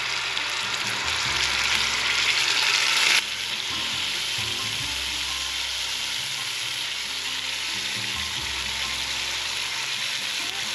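Rabbit pieces searing in hot oil in an enameled cast-iron Dutch oven, sizzling steadily. The sizzle is louder for about the first three seconds, then drops suddenly to a steadier, lower level.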